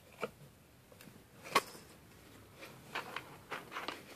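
A few sharp clicks and light knocks of a plastic animal-cracker jar, its lid and the crackers inside being handled by a baby. The loudest knock comes about a second and a half in, with a quick run of smaller clicks near the end.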